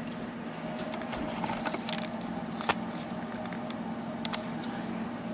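Small metal lock pins and cylinder parts being handled on a work surface: faint scattered clicks and taps, with one sharper click about two and a half seconds in, over a steady low hum.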